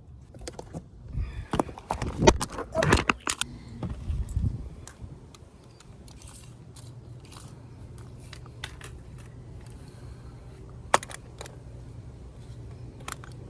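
Clicks, knocks and metallic clatter of a cordless saw and boards being handled and set up for a cut, busiest in the first few seconds, then a low steady hum with a couple of sharp clicks near the end.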